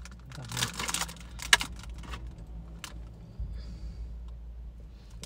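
Foil biscuit wrapper crinkling as it is peeled open, with sharp crackles in the first two seconds, then only faint rustles and clicks as it is handled.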